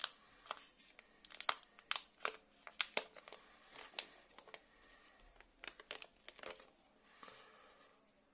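Clear plastic protective film being peeled off a smartphone's screen and back, crinkling and crackling in a run of sharp snaps that die away near the end.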